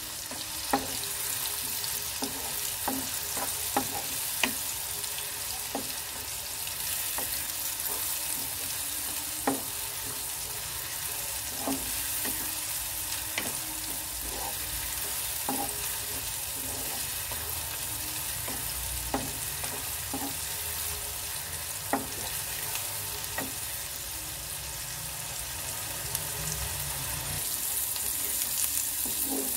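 Coarsely ground onion paste sizzling in hot oil in a non-stick kadhai as it fries toward golden brown, with a steady hiss. A wooden spatula stirs it, knocking and scraping against the pan every second or two.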